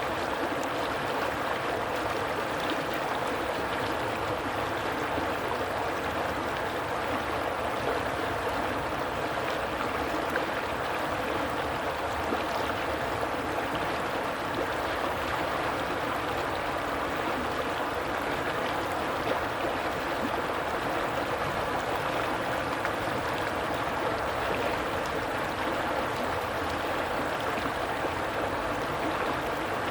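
Stream water running steadily, an even, unbroken rush.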